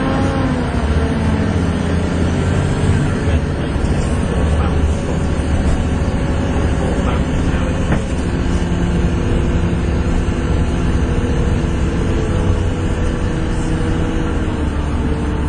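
Volvo B7TL double-decker bus's six-cylinder diesel engine pulling hard, a steady low drone with the whistling turbo 'hoover' sound over it. The pitch dips just after the start, then holds fairly steady.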